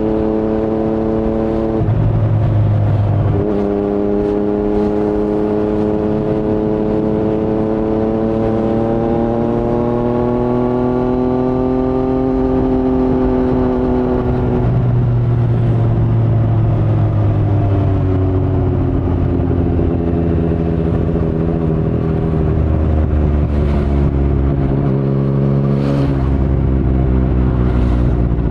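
A 2019 Yamaha MT-09's inline-three engine running through an Akrapovic carbon full-system exhaust with no dB killer, under light throttle on the road. The note breaks briefly about two seconds in, then climbs slowly for about ten seconds. It drops away about halfway, sinks gently as the bike slows, and steps down again near the end.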